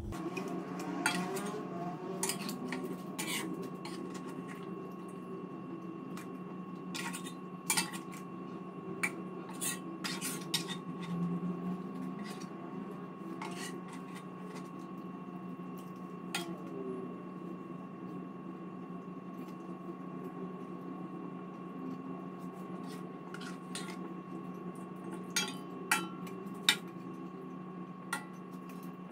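A metal spatula and a wooden spoon scraping and knocking against an aluminium wok as braised chicken pieces in thick sweet soy sauce are turned over halfway through cooking, with scattered clinks in clusters. A steady low hum runs underneath.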